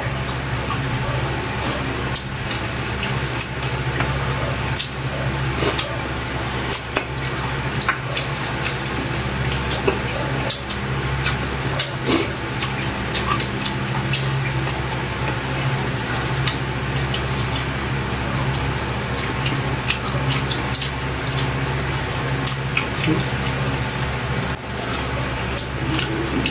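Close-up eating sounds of adobo octopus being chewed by hand: wet chewing, lip smacks and squishes of sauce, with frequent small clicks, over a steady low hum.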